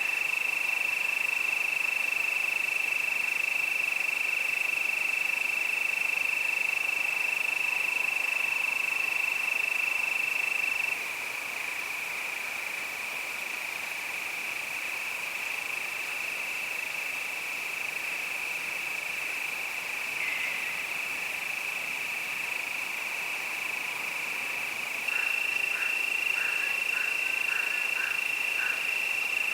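A chorus of crickets keeps up one steady, high, unbroken trill. The sound drops suddenly in level about eleven seconds in and comes back up near the end, where a quick run of short, lower chirps joins the trill.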